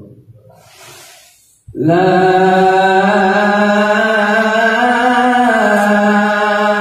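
A male voice reciting the azan, the Islamic call to prayer, sung into a handheld microphone. After a short quiet pause, about two seconds in, a long drawn-out melodic note begins and is held, rising slightly in pitch and settling back.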